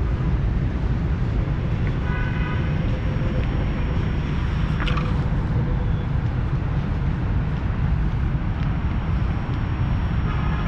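Steady low rumble of city traffic mixed with wind on the microphone. Short car-horn toots sound about two seconds in and again near the end.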